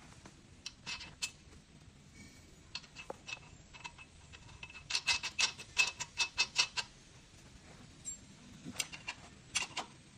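Sharp metallic clicks and taps from hand tools working on an e-bike's rear hub-motor axle. A quick run of ticks, about six a second, comes in the middle.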